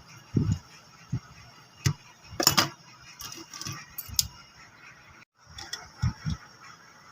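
Scattered light taps, clicks and knocks from handling a keypad mobile phone and small repair tools. There is a louder, brief rattle about two and a half seconds in, then a few faint ticks.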